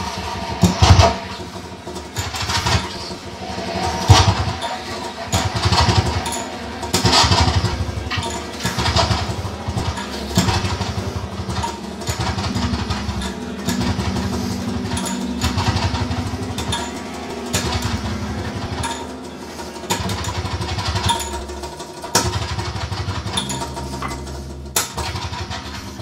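Free-improvised electroacoustic music from amplified instruments, objects and live electronics: a rough, pulsing low rumble with irregular noisy bursts over a held tone.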